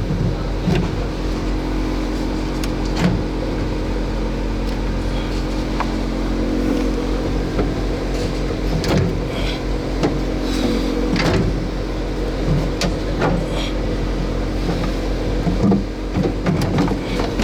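A steady machine hum made of several even tones, with scattered knocks and clatter throughout.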